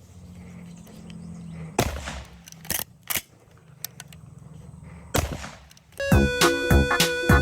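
Shotgun firing two shots about three and a half seconds apart, with a few sharp clicks between them. Music with a steady beat comes in near the end.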